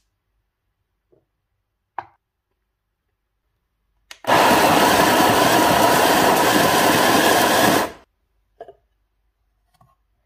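Graef CM900 conical burr coffee grinder running for about three and a half seconds, grinding a dose of beans into its container. It starts right after a click and cuts off suddenly. A couple of light clicks from the container and counter come before and after.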